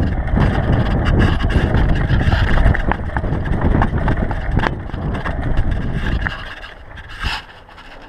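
GT DHi downhill mountain bike rolling fast over rough dirt singletrack: a loud rumble of tyres and wind on the microphone, with sharp rattling clicks as the bike jolts over bumps. About six seconds in the rumble drops away as the bike reaches smoother ground.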